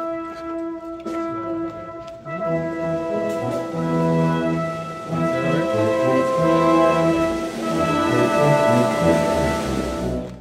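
A procession band of brass and percussion playing a Holy Week march, with held brass chords over drum strokes. The music swells fuller and louder in the second half.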